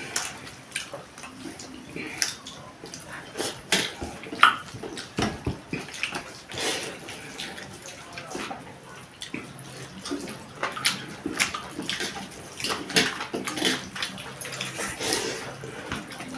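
Close-up eating sounds of a mukbang meal: wet chewing and lip-smacking, with many short clicks and crackles.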